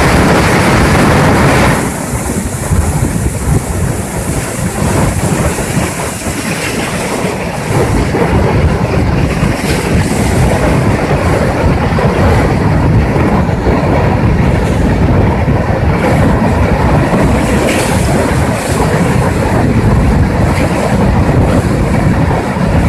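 Muddy flash-flood torrent rushing past: a loud, steady, deep roar of churning water. It dips slightly about two seconds in and builds back up.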